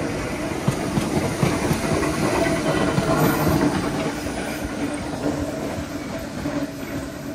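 Vintage wooden open-platform subway cars rolling past, wheels clacking over the rail joints over a steady rumble and hum. The sound fades from about five seconds in as the last car moves away.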